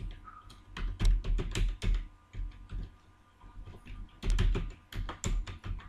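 Typing on a computer keyboard: quick runs of keystroke clicks, one flurry about a second in and another from about four seconds in.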